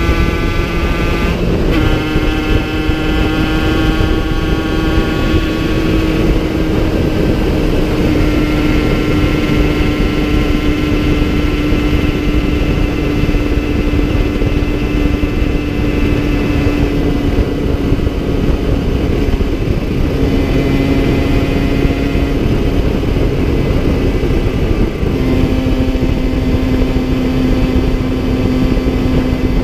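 2010 Yamaha TZR50 two-stroke single with a 70cc Airsal kit and Technigas exhaust, running at a steady cruising note that drifts slowly lower, with a short break about a second and a half in and small pitch changes twice near the end; its top end is worn and down on power. Heavy wind rush on the microphone underneath.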